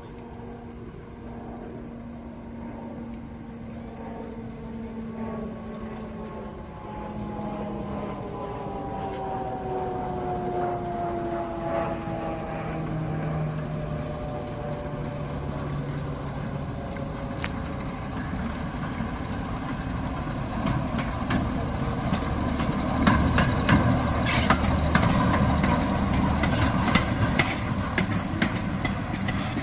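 Class 08 diesel shunter's six-cylinder English Electric engine running as it hauls coaches toward the listener, growing steadily louder, its pitch sliding down in the middle. In the last few seconds, as it comes close, wheels click over the rail joints.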